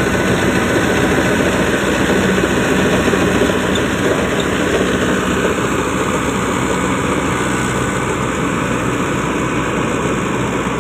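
KS combine harvester mounted on a Mahindra Arjun 605 DI tractor running while it harvests paddy: the diesel engine and the harvester's cutting and threshing machinery make a loud, steady machine noise.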